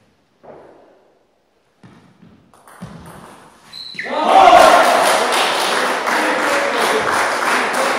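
A few faint knocks in near quiet, then about four seconds in, spectators start applauding and calling out, and the clapping and voices carry on steadily.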